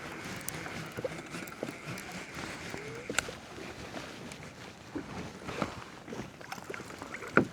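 Scattered small clicks and knocks of gear against a kayak over a steady wash of water and wind noise, with a sharper knock about three seconds in and another near the end.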